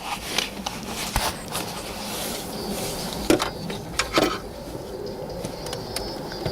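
Scattered clicks and knocks of hands working at the wiring connectors and unit behind a car's dashboard radio, with two sharper knocks a little after the middle.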